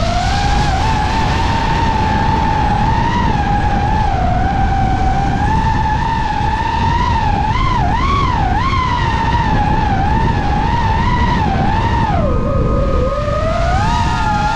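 DJI FPV drone's motors and propellers whining close up over a steady low rush of wind. The pitch wavers, dips and rises about eight seconds in, then drops lower and climbs back near the end.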